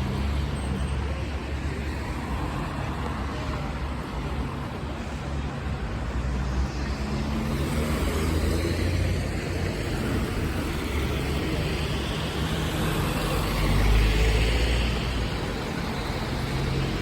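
Steady city road traffic noise with vehicles passing, a low rumble that swells about halfway through and more strongly a little before the end.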